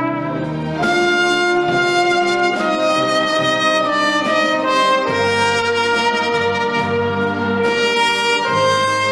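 Solo trumpet playing a slow melody of long held notes over orchestral strings; a low bass line enters about five seconds in.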